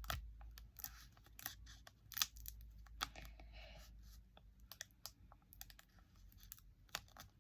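Faint, scattered clicks and light rustling from hands handling small objects, with sharper clicks about two seconds and three seconds in.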